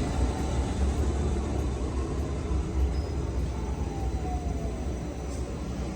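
Class 376 Electrostar electric train running: a steady low rumble with a faint whine, easing off gradually near the end.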